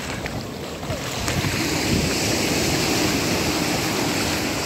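Small waves breaking and washing up over a sandy beach: a steady rush of surf that grows a little louder about a second in.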